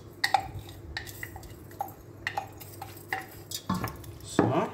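Wooden spoon stirring rice in water in a stainless-steel pot: a string of light knocks and clicks against the pot's side and bottom, with a louder scraping clatter near the end.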